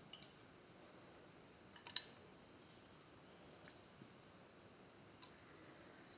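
Light clicks and taps as raw beef pieces are put into a stainless steel pressure cooker pan, the sharpest cluster about two seconds in, with a few fainter ticks after.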